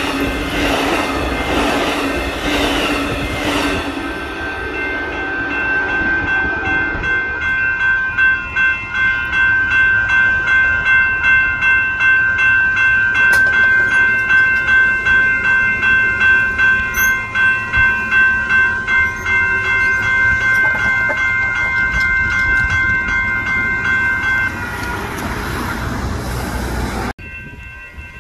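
Amtrak double-deck passenger train rolling past, its wheels rumbling on the rails. A grade-crossing warning bell then rings in even pulses, a little under two strokes a second, for about twenty seconds. Near the end a rush of noise rises and is suddenly cut off.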